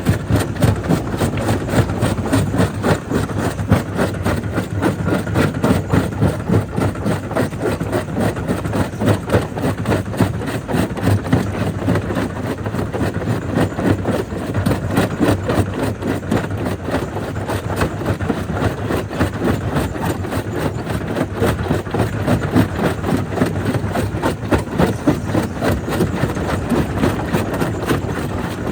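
Jaw crusher running and breaking stone: a steady heavy machine drone laced with dense, irregular cracking and knocking of rock.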